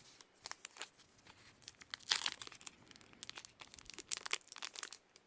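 Baseball cards and a card pack wrapper being handled, crinkling and rustling in short, irregular bursts. The loudest crinkle comes about two seconds in.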